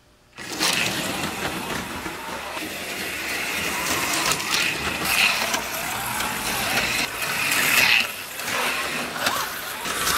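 Two HO-scale AFX Tomy slot cars pulling away from the start line and racing on plastic track. The small electric motors whine, rising and falling in pitch with speed, over a steady whirr and clicks from the cars running in the slots. The sound starts suddenly about half a second in.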